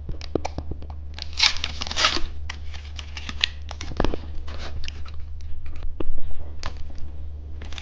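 Plastic candy packaging being handled and torn open: crinkling with scattered small clicks and taps, loudest in two bursts about one and a half and two seconds in, over a steady low hum.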